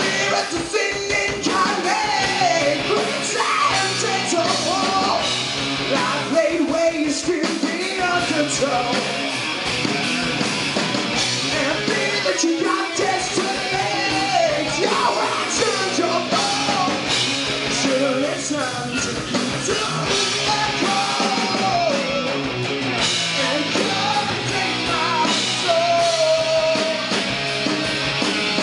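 Live rock band playing loud: electric guitars and a drum kit, with a lead vocalist singing over them.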